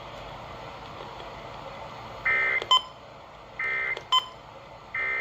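Emergency Alert System SAME header: three short bursts of buzzy digital data tones about 1.4 seconds apart, starting about two seconds in, each followed by a brief sharp blip, over faint radio hiss. The header marks the start of a new weather alert broadcast.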